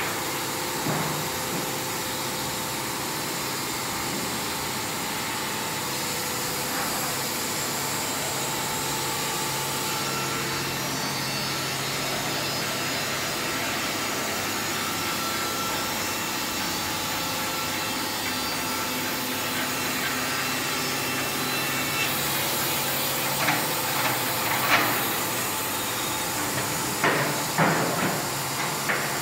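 Wood-Mizer WM3500 band sawmill running steadily as its blade cuts lengthwise through a log. Near the end come several sharp clanks and knocks.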